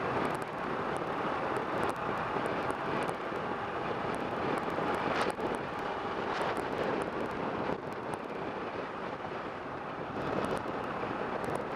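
Kawasaki Ninja 650 parallel-twin motorcycle on the move: a steady engine-and-wind rush, with wind buffeting the microphone.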